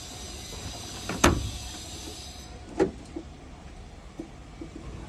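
Two sharp clunks about a second and a half apart, the first louder, over a steady low hum.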